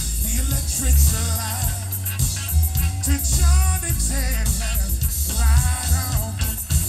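Live band playing amplified through the stage PA, with a man singing lead into a microphone over a heavy, pulsing bass line and drums.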